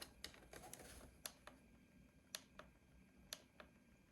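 A few faint, sharp clicks, several in quick pairs, from the small plastic buttons of a digital alarm clock being pressed.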